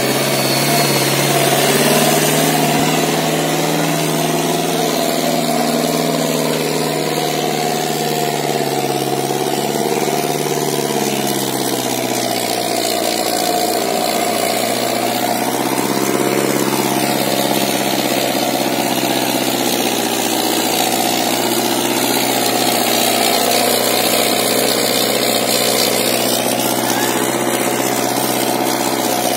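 Sonalika 750 tractor's diesel engine running hard under heavy load, dragging a sack-weighted disc harrow through deep sand with its front wheels lifting. The engine note is steady, and its pitch shifts slightly about eleven seconds in.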